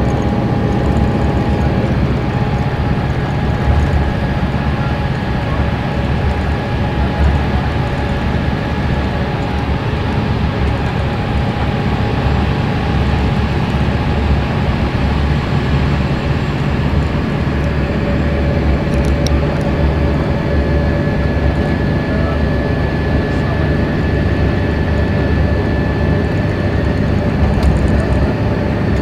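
Detroit Diesel Series 60 diesel engine of a 1992 Neoplan AN340/3 coach running steadily at freeway cruising speed, heard from inside the passenger cabin as a low rumble under road and tyre noise. A faint steady whine runs under it.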